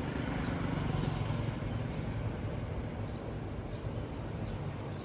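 A motor vehicle's engine running steadily, a low hum with road or wind noise, slightly louder for the first second or so.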